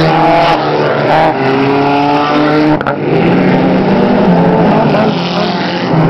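Engines of several dirt-track race cars, VW Beetles and small sedans, running hard as they pass one after another. The engine notes overlap and rise and fall in pitch.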